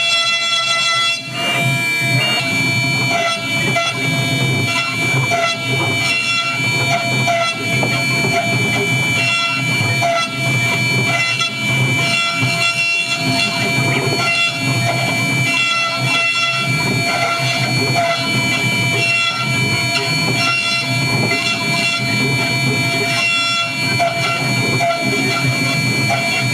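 High-frequency spindle of a MillStep PA6050 gantry CNC milling machine running at high speed while a 3 mm engraving cutter cuts a stamp: a steady whine of several held tones over an uneven cutting noise.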